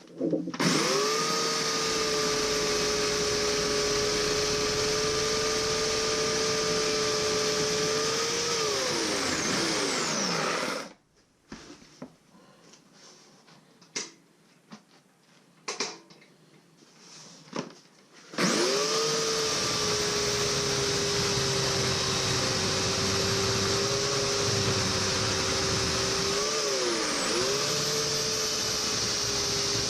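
Bauer corded electric chainsaw whining at steady full speed. It winds down and stops after about ten seconds, with a few scattered knocks in the quiet that follows. It then starts again and runs, its pitch dipping briefly twice near the end as the chain bogs in the wood of a bowl blank.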